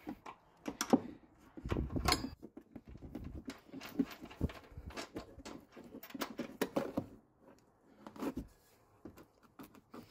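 Irregular knocks, clunks and taps of metal tools and suspension parts being handled while the old shock is taken out. There is one sharper clink about two seconds in.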